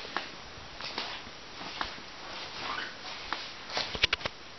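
Footsteps and small handling noises in a small room, spaced about a second apart, with a quick run of three or four sharp clicks about four seconds in, the loudest sound.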